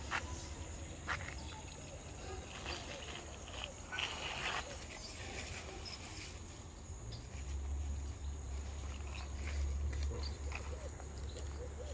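Outdoor ambience: a steady high-pitched insect drone, with scattered faint ticks and a low rumble that gets louder about seven seconds in.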